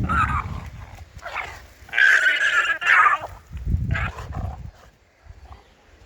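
Male alpacas screaming while fighting: shrill, rough cries, the longest and loudest lasting over a second about two seconds in, with shorter ones around it. Low rumbles of scuffling or wind come at the start and again near four seconds.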